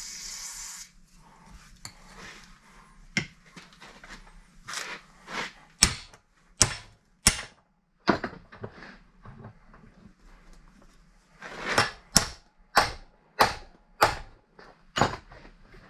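A short hiss from an aerosol can, then a hammer striking a chisel driven into a steel steering part held in a bench vise to split it apart. There is a single strike about three seconds in, three strikes a little under a second apart around six to seven seconds, and a run of about six strikes near the end.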